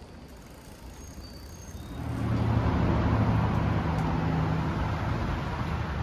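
Road traffic noise with a steady low engine hum, coming up loud about two seconds in.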